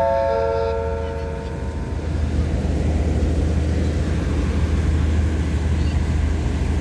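The last notes of a descending multi-tone chime from the station loudspeaker ring and fade over the first second or two. Under it, the air-conditioned diesel railcar's engines run with a steady low rumble as the train pulls away from the platform.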